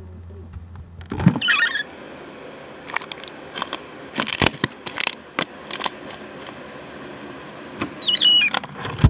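Snack packets rustling and clicking as they are handled in a mini fridge, with a squeak about a second in and another squeak near the end.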